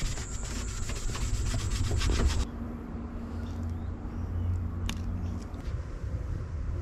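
A cricket's rapid high chirring cuts off abruptly a couple of seconds in. After it come a low hum and soft rubbing and handling noises as a plastic bilge pump is pressed into place on the aluminium hull floor, with a few sharp clicks.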